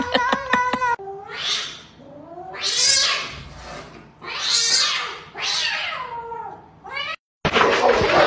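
Cats hissing and yowling at each other in a standoff, in about five separate bursts, some of the calls falling in pitch.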